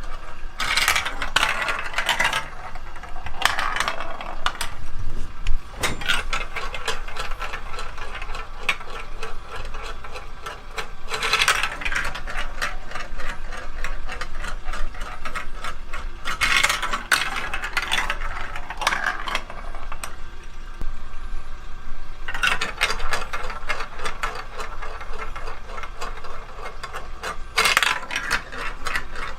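Plastic building-block marble run clicking steadily and rapidly, with several bursts of marbles clattering down the plastic ramps.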